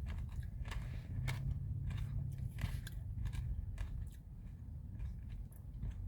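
A person eating a Blizzard: chewing crunchy chocolate and peppermint candy pieces mixed into soft-serve ice cream, with scattered short sharp clicks over a low steady hum.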